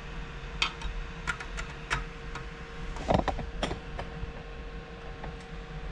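Screwdriver working the screw terminals of a 3D printer's power supply block: scattered small metallic clicks and scrapes, the loudest about three seconds in, over a steady faint hum.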